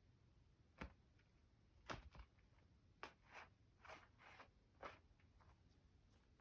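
Near silence with a string of faint rustles and light taps, spread unevenly through the quiet: a kitten playing and pawing about.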